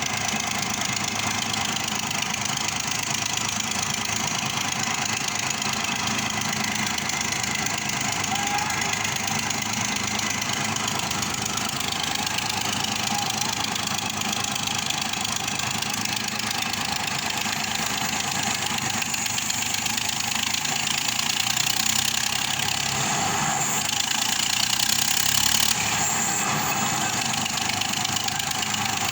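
Construction machinery engine running steadily, a little louder for a few seconds past the middle.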